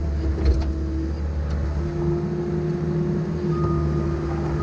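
Cat mini excavator's diesel engine running with the whine of its hydraulics as the boom and bucket move. About two seconds in, the pitch of the whine steps up slightly and stays there.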